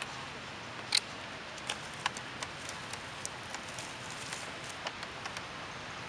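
Scattered sharp clicks and crackles, the loudest about a second in, over a steady background hiss: a thin plastic water bottle crinkling as a macaque grips it and drinks from it.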